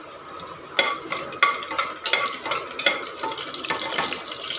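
Whole spices (cinnamon, cardamom and cloves) frying in hot ghee in a pressure cooker, stirred with a spoon that scrapes and clinks against the pot again and again from about a second in.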